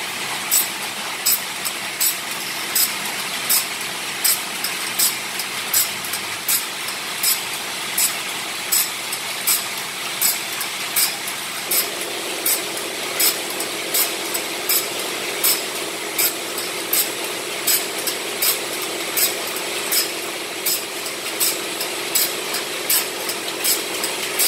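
Automatic bandsaw-blade sharpening machine running, its grinding wheel giving a short, sharp grinding rasp about every three quarters of a second, one stroke per tooth as the blade is stepped forward, over the steady hum of its motor. The hum thickens about halfway through.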